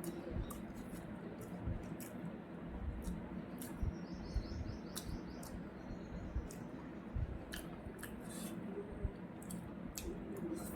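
Close-up eating sounds: chewing with irregular crisp clicks and crunches over a steady low hum.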